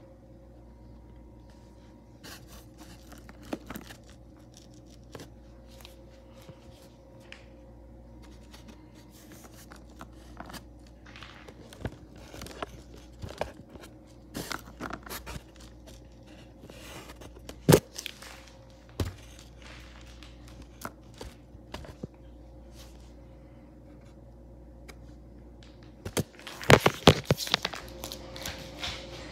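Hard plastic toy animal figures clacking and scraping against one another and the cardboard box as they are rummaged through, in scattered clicks with one sharp knock about two-thirds of the way in. Near the end comes a denser flurry of louder knocks and rubbing.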